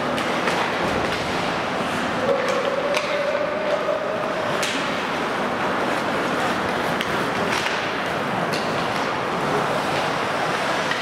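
Ice hockey skates scraping and carving on the rink ice, with sharp clacks of sticks and puck now and then, echoing in an indoor arena.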